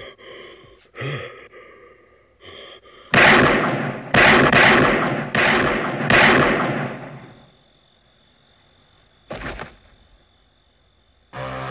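A handgun fired five times in quick succession at close range, each shot loud with an echoing tail, after a few seconds of short, wavering gasping and sobbing. A faint, steady high ringing tone hangs after the shots. One short, dull burst comes near the end, and then eerie music starts.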